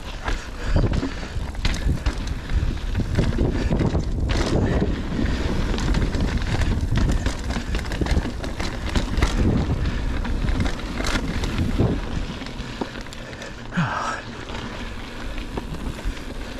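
Mountain bike riding down a rocky dirt trail: wind buffeting the microphone over tyre rumble, with frequent sharp knocks and rattles from the bike over the rocks. It gets quieter from about twelve seconds in.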